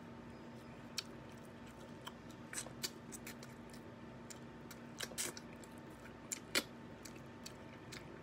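Cooked crab shell being picked apart by hand and eaten: scattered small cracks, clicks and wet squishes, with the sharpest snap about six and a half seconds in, and some chewing. A faint steady hum runs underneath.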